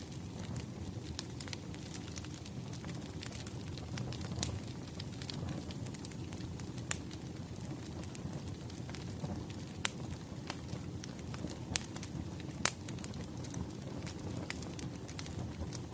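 Wood fire crackling: a steady low rush of flames with scattered sharp pops, a few of them much louder than the rest.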